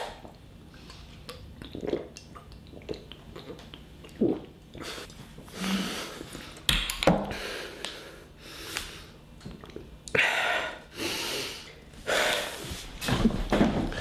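A man's breaths and sniffs close to the microphone, in several noisy bursts about a second long, with a single knock about halfway through from things being handled on a table.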